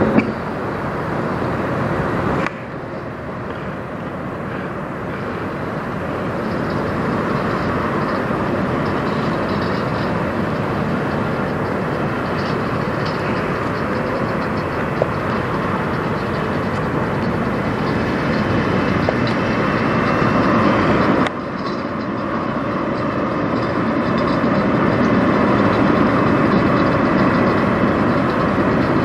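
Diesel engine of a Peterbilt semi truck running as it pulls a loaded flatbed trailer slowly through the lot, growing louder as it comes closer. The sound changes abruptly twice, about two seconds in and again about two-thirds of the way through.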